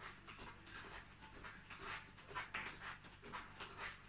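A man breathing hard in quick, rhythmic puffs, about two or three a second, from the exertion of light jumping on the spot. A faint steady low hum lies beneath.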